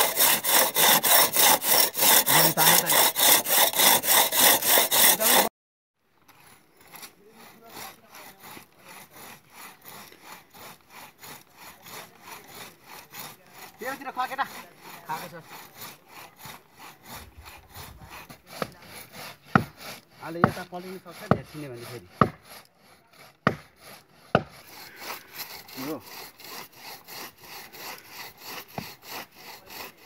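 Hand saw cutting pine wood in quick, even back-and-forth strokes, loud for the first five seconds. After a break, a long two-man crosscut saw works into a thick pine trunk, quieter, with a few sharp knocks along the way.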